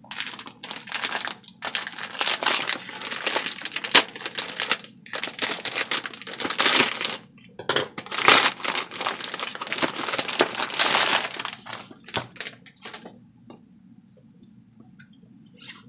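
Clear plastic packaging bag crinkling and rustling as it is cut open with scissors and a boxed kit is pulled out of it. The handling is dense and continuous, with a short pause about seven seconds in, and it thins to a few faint crackles after about twelve seconds.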